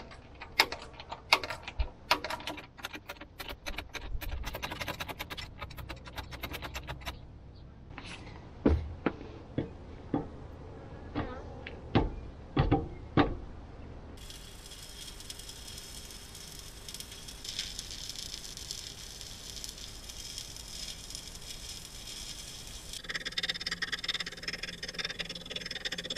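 A hydraulic bottle jack being pumped, its handle and fittings clicking and rattling rapidly for several seconds, then a few louder metal knocks. About halfway in, stick welding on steel starts: a steady crackling hiss of the arc that changes texture near the end.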